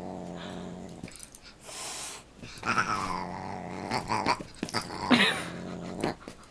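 Dog growling low and steadily in rough play with a cat, broken by a few short, louder, higher cries that fall in pitch, about three and five seconds in.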